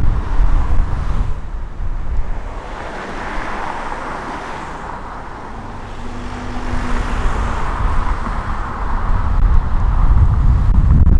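Road noise of a car being driven on a city road: a low rumble with tyre hiss. It eases off in the middle and builds again near the end.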